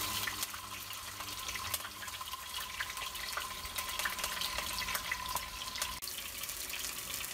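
Pieces of barramundi shallow-frying in hot oil in a stainless steel pan: a steady sizzle with scattered crackles and pops.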